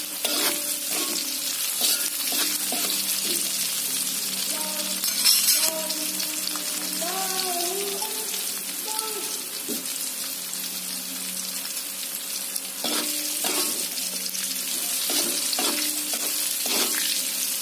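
Shallots, chilli and lemongrass sizzling steadily in hot oil in a pan, with a metal spatula stirring and knocking against the pan several times near the start and again near the end. There is a louder burst of sizzling about five seconds in.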